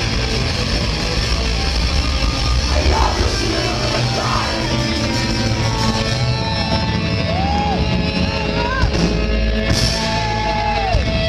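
Heavy rock band playing live: distorted electric guitars, bass and drums at full volume, with shouted vocals and sliding guitar or voice notes over the top in the second half.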